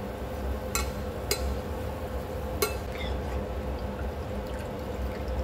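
Sweet potato balls sizzling as they fry in a pan of oil, over a steady hum. A metal ladle clinks sharply against the pan three times in the first three seconds as the balls are stirred and scooped out.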